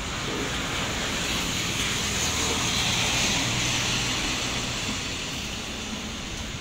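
Traffic on a rain-wet road: a passing vehicle's tyre hiss swells and fades, loudest about three seconds in, over a low steady rumble.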